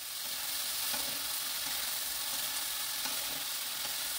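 Julienned Korean squash frying in oil in a nonstick wok: a steady sizzle, with the squash being stirred and turned by a wooden spatula.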